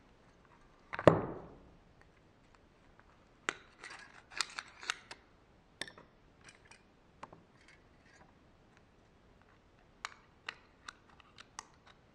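Scissors snipping a small shim out of thin metal sheet, a scattered series of sharp clicks and cuts. One louder thump comes about a second in.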